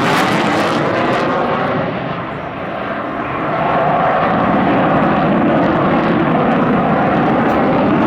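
F/A-18 Super Hornet's twin General Electric F414 turbofans running hard through a tight minimum radius turn, a loud steady jet noise that fades a little about two seconds in and then swells back up.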